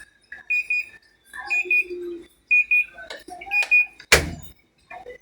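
Panasonic automatic washing machine's control panel beeping: a double beep repeated about once a second, like an alarm signal. A loud thump about four seconds in.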